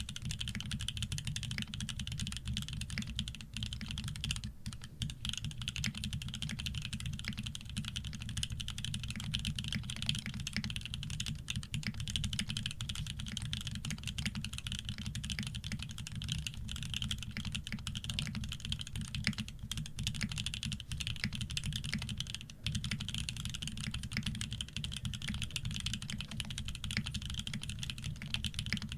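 Continuous fast typing on a Shark60 60% custom keyboard with OP Black switches, PBT keycaps and an aluminium plate, no foam inside. The switches have 150 g springs and are lubed with Krytox 105. The keystrokes run together into a dense, steady clatter.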